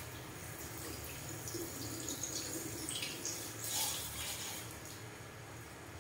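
Water from a handheld shower sprayer running and splashing through hair into a ceramic shampoo basin, with drips and gurgles, dying down after about four and a half seconds.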